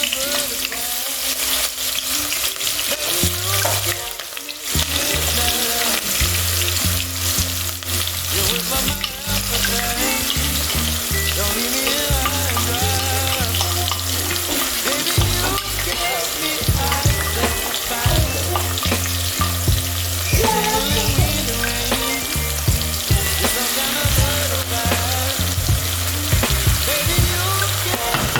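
Onion frying in hot cooking oil, a steady loud sizzle.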